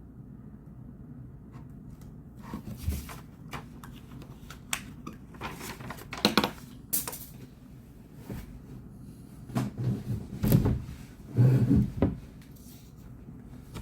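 Objects being handled at a study desk: scattered clicks, knocks and short rustles, with a few heavier thuds in the last few seconds.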